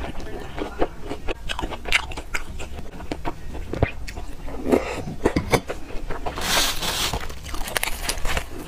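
Close-miked eating: a mouth biting and chewing soft youtiao soaked in soy milk, with many wet clicks and smacks. About two-thirds of the way in there is a brief, brighter crackling rustle.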